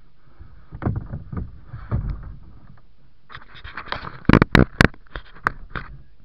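Kayak paddling: the paddle splashing in the water and knocking against the hull in irregular sharp knocks, with a quick run of loud knocks about four to five seconds in.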